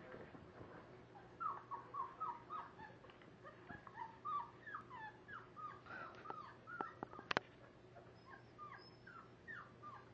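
Half-dachshund, half-pug mix dog whimpering in a rapid string of short, falling whines, about three or four a second, starting a little over a second in. A single sharp click a little past the middle.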